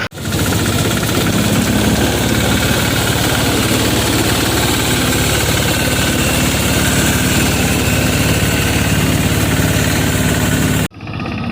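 Small mini-tractor engine running steadily, with a steady hiss over it. The sound drops out for an instant right at the start and again near the end, where the footage is cut.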